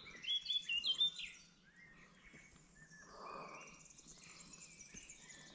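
Small bird singing: a quick run of high chirping notes in the first second and a half, then fainter, sparser chirps. A brief soft rush of noise comes about three seconds in.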